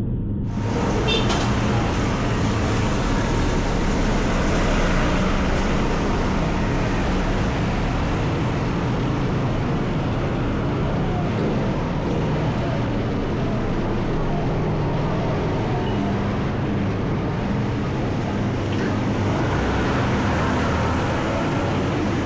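Steady traffic and road noise with a continuous low rumble, heard from a bicycle moving along a street.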